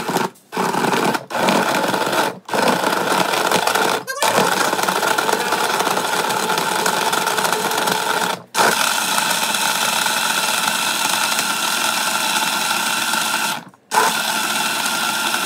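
Countertop blender running at speed, blending frozen spinach, fruit and apple juice into a smooth shake. The motor's steady noise cuts out for a split second several times, about a second apart at first, then further apart.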